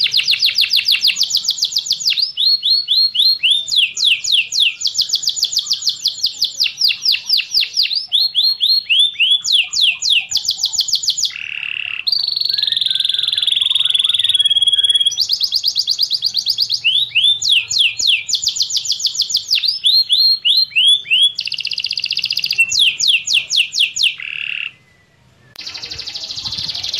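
Domestic canary singing: a long song made of rapid trills, phrase after phrase of fast repeated high notes, each run switching to a new note every second or two, with a short pause near the end.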